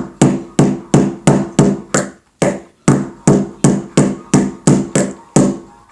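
Small hammer striking a flathead screwdriver wedged into a Rubik's cube, a quick run of sharp taps at about three a second, with two brief pauses, to pry a cube piece loose.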